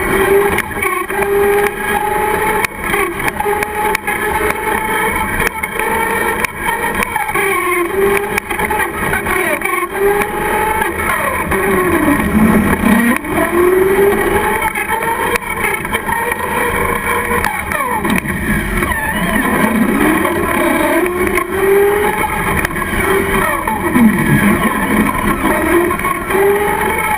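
Traxxas Slash RC truck's motor whining as it drives, the pitch rising and falling with the throttle, over a steady rush of road noise. The whine drops low and climbs back twice, around the middle and near the end, as the truck slows and speeds up again.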